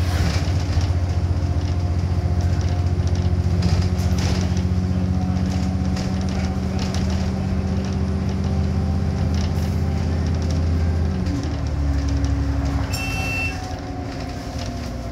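Double-decker bus engine and drivetrain running steadily under way, heard from on board. Its note drops about eleven seconds in as the bus eases off. A short high-pitched beep sounds near the end.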